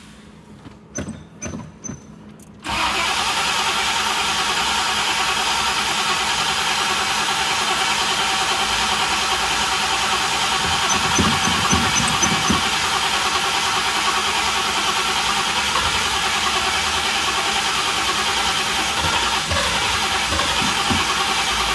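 A high-torque PowerMaster starter cranking the 1967 Pontiac Grand Prix's V8 in one long, steady crank of about nineteen seconds without the engine catching, after a few clicks in the quiet first seconds.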